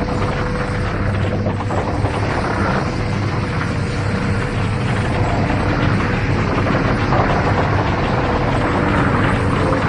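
A windmill burning as a large blaze: a steady, dense rumble of fire with no letup.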